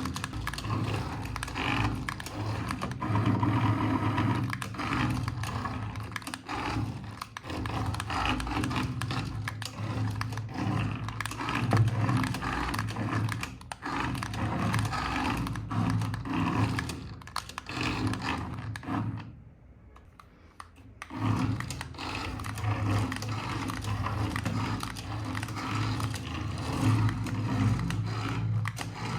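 A remote-control toy vehicle's small electric motor and plastic gearing running with a steady hum, mixed with scraping and clicking. It stops for about two seconds roughly two-thirds of the way through, then starts again.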